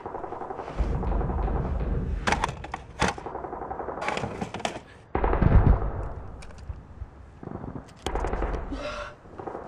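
Gunfire sound effects: rumbling bursts of machine-gun fire about a second in, around five seconds in (the loudest) and about eight seconds in, with sharp single cracks in between.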